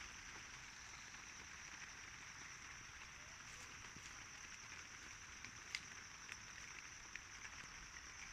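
Light continuous rain: a faint, even hiss with scattered drops ticking, the sharpest about halfway through, over a steady high-pitched hum.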